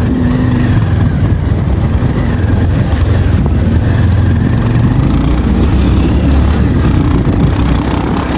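Motorcycle engine running steadily under way, heard together with steady road noise.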